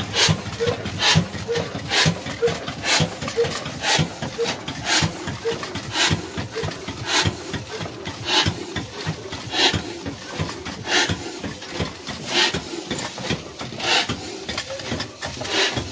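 Old Ruston horizontal single-cylinder diesel engine running on black oil, its big flywheel turning: a heavy, even knocking beat about twice a second, slowing a little toward the end.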